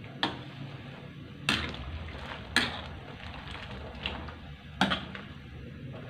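Metal ladle knocking and scraping against an aluminium wok while stirring boiling bottle gourd soup: about five sharp clinks at irregular intervals.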